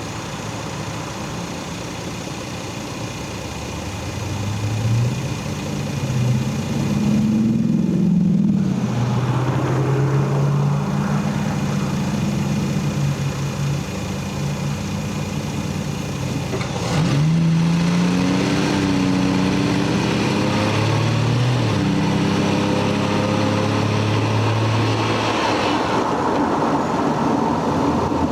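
Stock Lexus GS300's 3.0-litre 2JZ straight-six engine and exhaust pulling under way. The engine pitch climbs about four seconds in, steps down and back up several times, and falls off near the end.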